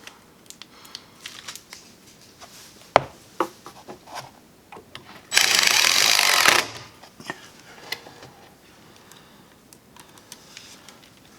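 Power drill driving a screw into wood for about a second, midway through, amid scattered clicks and knocks of screws and metal brackets being handled.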